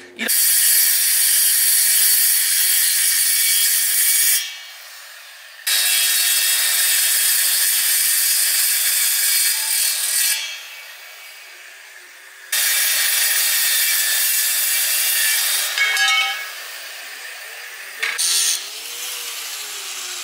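Circular saw cutting through aluminum on an intercooler, a harsh high cutting noise in three passes of about four seconds each with short pauses between. A quieter motor whir follows near the end.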